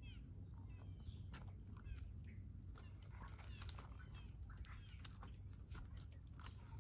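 Small birds chirping faintly in the garden: quick downward-sweeping chirps and a short high note repeated about once or twice a second. Underneath runs a steady low hum, with scattered small clicks.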